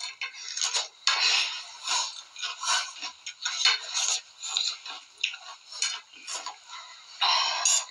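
Hurried eating close to a phone's microphone: quick, irregular clicks and scrapes of spoons and forks on plates, with mouth noises of people eating fast, several small sounds a second.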